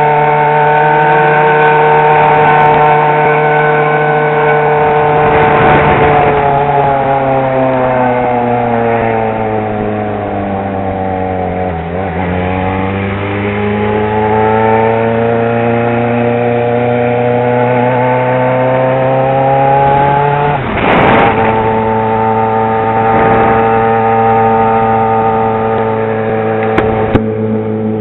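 Yamaha XJ6 motorcycle's inline-four engine running loud and steady; about a third of the way in its note sinks slowly, then climbs back over the next several seconds as the engine speeds up again. A brief rush of noise cuts across it about three quarters of the way through.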